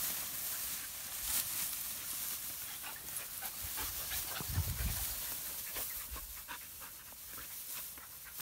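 Dogs panting while rustling through tall grass, with many small crackles from the stems. There is a brief low thump about halfway through.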